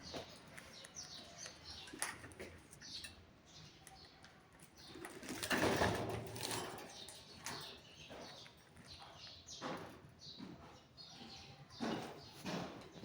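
Parrots chirping in short, high, repeated calls, with a louder burst of wing flapping a little before the middle.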